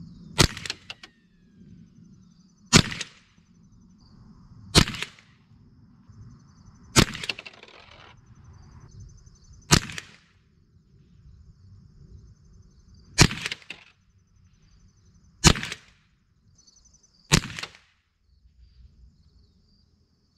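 Ruger 10/22 .22 rimfire rifle firing eight single shots, spaced about two to three and a half seconds apart, a test group fired to zero the scope after a turret adjustment.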